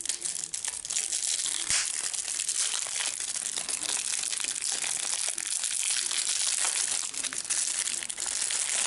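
Clear plastic shrink wrap crinkling and tearing as it is peeled off a sealed deck of trading cards, a dense run of small crackles.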